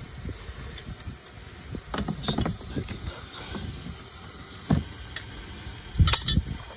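A metal wrench on an outdoor hose bib's valve body, making scattered clicks and knocks. The loudest pair of knocks comes near the end.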